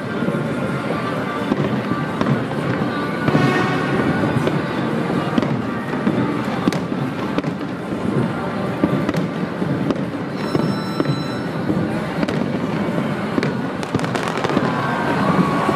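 Fireworks display going off without a break: a constant crackle of bursting shells, with frequent sharp bangs.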